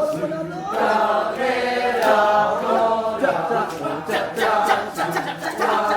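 A group of voices chanting and singing together without instruments, a steady choral chant with several pitches layered.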